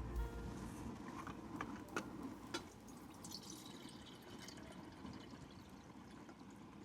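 A few light clinks of dishes, then liquid being poured softly into a cup, trailing off.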